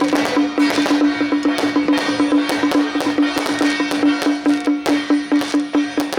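Taiwanese temple-procession percussion, with drum and metal percussion beating a fast, steady rhythm of about four strokes a second over a held pulsing tone.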